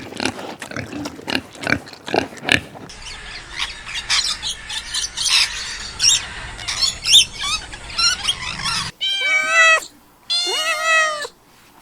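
Pig grunting in short, quick strokes, then a noisier stretch of high squeaks and squeals. Near the end a cat gives two long, drawn-out meows.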